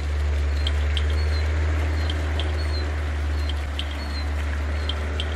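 A bird calling with short, high chirps repeated about twice a second, over a steady low rumble.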